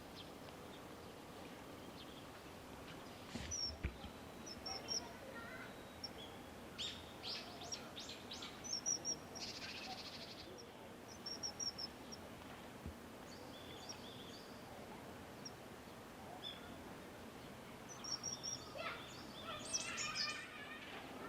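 Small birds calling: several clusters of short, high chirps over a steady background hiss.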